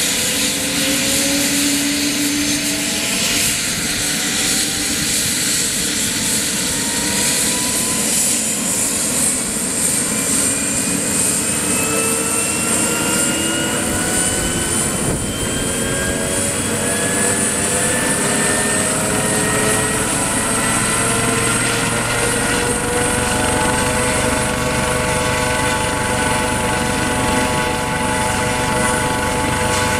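USCG HH-65 Dolphin twin-turbine helicopter starting up: the turbine whine rises steadily in pitch as the engines spool up and the rotors come up to speed. The tones level off and a low rotor thrum builds about two-thirds of the way in.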